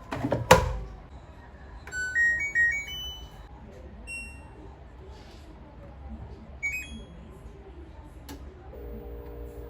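A thump, then an appliance's electronic beeps: a short run of stepped tones like a little tune about two seconds in, followed by single beeps a few seconds apart.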